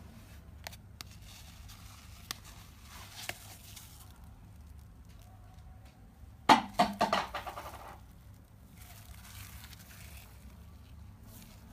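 Slime being squished and pressed by hand in a clear plastic tub: scattered soft clicks and crackles, then about six and a half seconds in a loud burst of wet squelching pops that fades out over about a second, followed by fine crackling.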